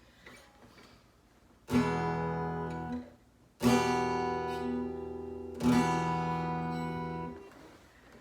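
Three strummed guitar chords, each struck sharply and left to ring for a second or two. The first is damped short, and the last fades out.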